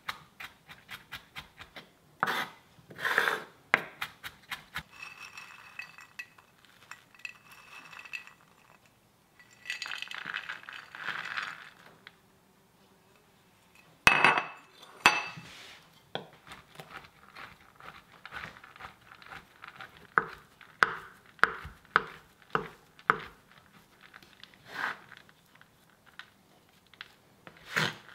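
Kitchen knife chopping on a wooden cutting board: quick taps as garlic is minced at first, then, after a few stretches of scraping, a run of evenly spaced chops through raisins in the second half.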